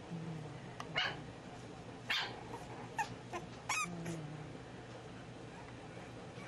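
English bulldog puppies, five weeks old, playing: several short yips and barks about a second apart, a high wavering squeal a little before the middle, and low growling near the start and again around the middle.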